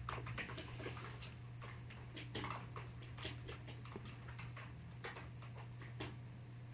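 Faint, irregular light taps, about one or two a second, over a steady low hum: fingers tapping a smartphone's on-screen keyboard while entering a Wi-Fi password.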